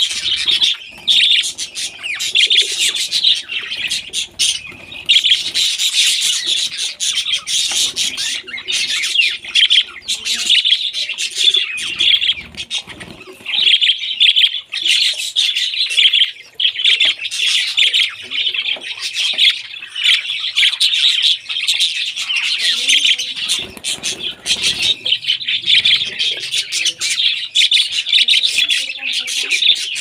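A flock of budgerigars chattering without a break, many high chirps, warbles and squawks overlapping.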